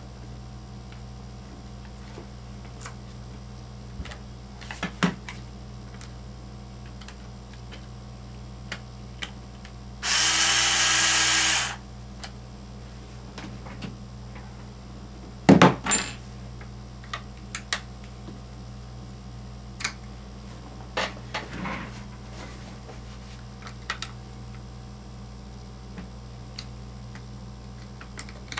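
Cordless power screwdriver running for about a second and a half at one steady pitch, working a screw on an RC truck's rear axle carrier. Around it come scattered light clicks and knocks of small metal parts and tools being handled; a sharp knock a few seconds after the screwdriver stops is the loudest sound.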